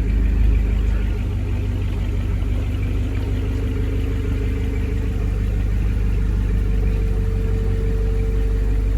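Car engine idling steadily through a newly fitted Solo Performance straight-pipe exhaust with J-pipe mufflers, a deep, even exhaust note.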